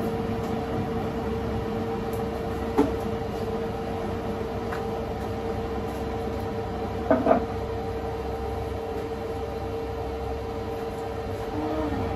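Kitchen range hood exhaust fan running steadily, a constant hum with one fixed tone over a low rumble. Brief clatters of kitchenware come about three seconds in and again around seven seconds.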